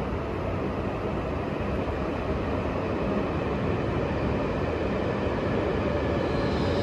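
E5 series Shinkansen approaching the platform of an underground station: a steady rumble that slowly grows louder, with a higher hiss joining it near the end.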